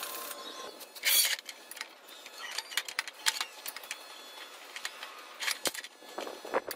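Steel tubing and a chop saw's screw vise being handled: a short scrape about a second in, then scattered light clicks and knocks of metal on metal.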